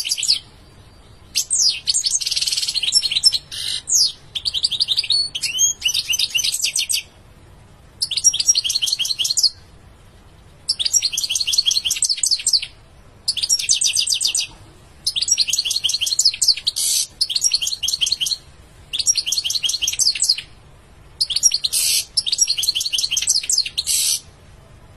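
European goldfinch singing: a high, rapid twittering song delivered in phrases of one to three seconds, with short pauses between them, stopping near the end.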